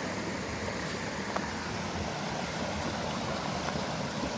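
Steady rushing of a mountain creek, with one faint click about a second and a half in.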